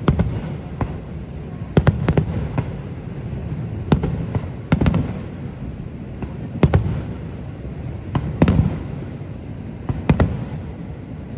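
Fireworks shells bursting overhead, about a dozen sharp bangs at uneven intervals of one to two seconds, over a steady low rumble.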